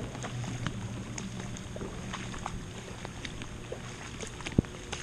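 Footsteps sloshing and splashing through shallow floodwater on a paved street, in many short irregular splashes, with one sharp knock about four and a half seconds in.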